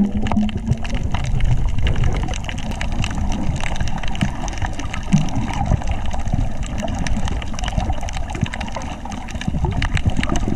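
Water splashing and sloshing close to the microphone, with many small crackling splashes.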